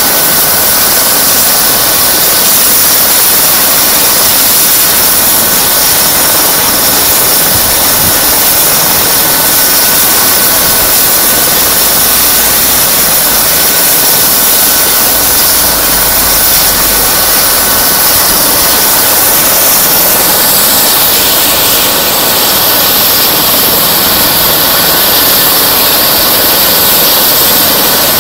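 Eurocopter EC135 P2 helicopter's twin turboshaft engines running on the ground: a steady turbine whine over a strong, high hiss. The hiss grows louder about twenty seconds in.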